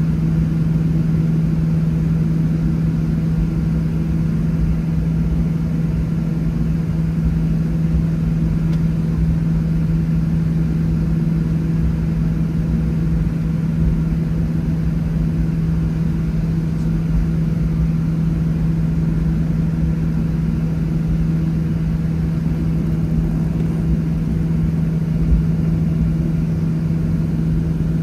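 Boeing 737-700 cabin while taxiing, its CFM56-7B engines running at low thrust: a steady hum over a low, uneven rumble.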